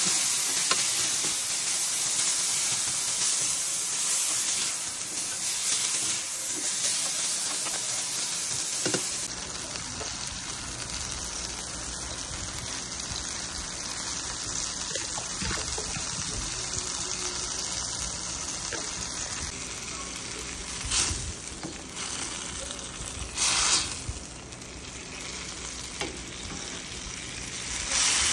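Diced cucumber, bell peppers and tuna sizzling steadily in a hot stainless steel skillet as they are stirred with a spatula, with a few short louder bursts of sizzle and scraping in the last several seconds.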